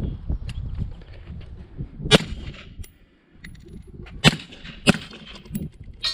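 Gunfire on a shooting range: single sharp shots about two seconds in and twice more around four and five seconds in, with smaller clicks and clatter between.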